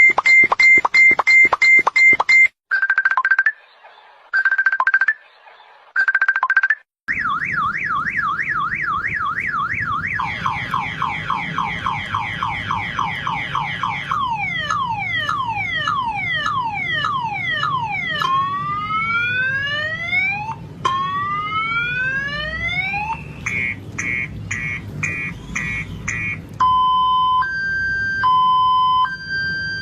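Multi-tone electronic car alarm siren cycling through its patterns. It opens with fast beeps, then gives a slow on-off tone, a rapid warble, quick rising and then falling sweeps, slow rising whoops and fast chirps, and ends on an alternating high-low two-tone.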